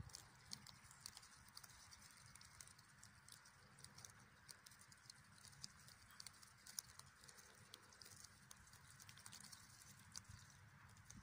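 Egyptian geese grazing, their bills plucking and tearing short grass in a quick, irregular run of faint clicks, over a faint steady hiss.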